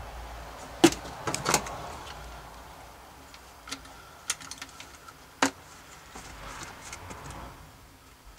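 Scattered sharp plastic clicks and knocks from a corrugated vacuum cleaner hose being handled and fitted against a wooden bar, a cluster of louder ones about a second in and another single knock past five seconds, with lighter ticks between.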